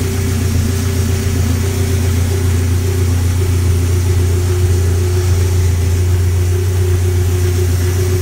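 Sand rail dune buggy engine idling steadily, with no change in speed.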